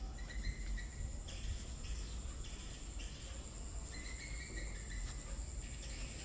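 Insects chirping: a steady high trill with short bursts of chirps coming and going.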